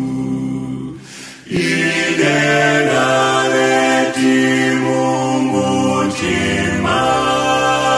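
A cappella choir singing a gospel song with several voices in harmony on long held notes. A short break between phrases comes about a second in.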